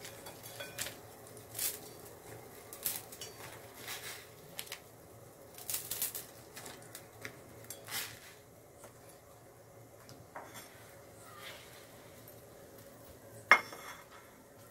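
Scattered light clinks and taps against a stainless steel cooking pot as instant noodles are pushed down into boiling water, over a faint steady background. One sharp metallic clink near the end is the loudest.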